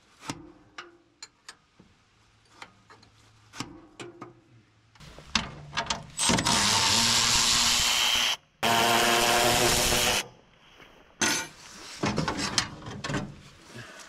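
Light metal clicks and taps of tools on the machine, then a handheld power tool running in two bursts of about two seconds each with a short break between, loosening the brake band adjuster on the tracked dumper's steering linkage.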